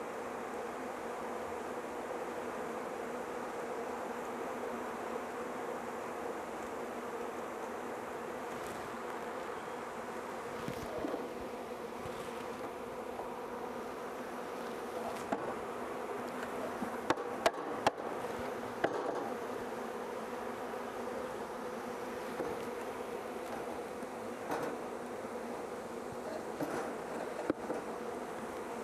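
A mass of honeybees buzzing in a steady, unbroken hum as a package of bees is installed in a hive. A few sharp knocks come about two thirds of the way through.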